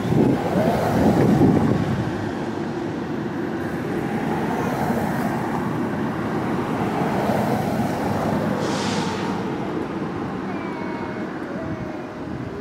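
Steady low rumble of vehicle engines, with no distinct knocks or horn blasts.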